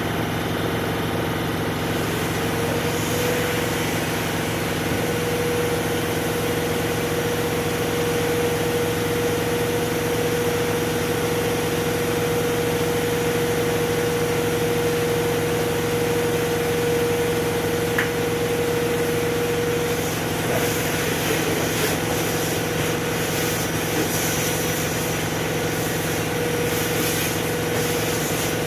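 Wet-and-dry vacuum cleaner running steadily, with a constant tone over the motor noise for most of the time. In the last third the tone fades and an uneven sucking hiss comes in as the nozzle works over a flat knitting machine's needle bed.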